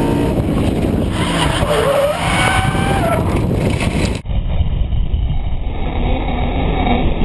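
Nissan 350Z drift car's swapped VK56 5.6-litre V8 engine revving up and down under heavy, steady rushing noise, heard from a camera mounted on the car's side. About four seconds in the sound abruptly turns duller.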